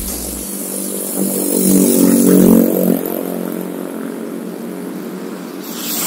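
Motor vehicle engine passing, loudest around two seconds in, over steady road noise.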